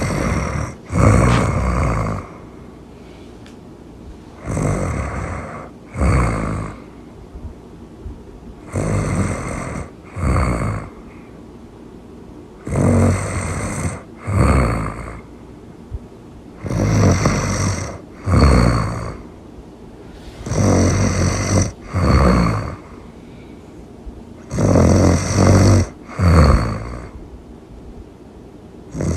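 A person snoring, really loud, in a steady rhythm: about every four seconds a longer snore followed at once by a shorter one, seven times over.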